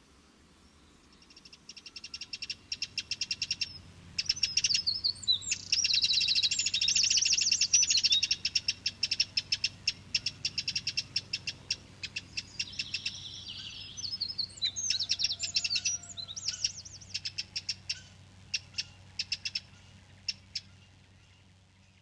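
Small songbirds chirping in fast runs of sharp high notes with some quick rising and falling whistles, building up after a second or two, busiest in the middle and thinning to scattered chirps near the end.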